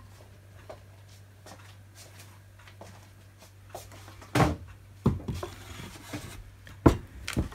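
A wooden chopping board set down on a kitchen table and a heavy stoneware mixing bowl moved onto it: a few hard wooden knocks from about four seconds in, the sharpest near the end.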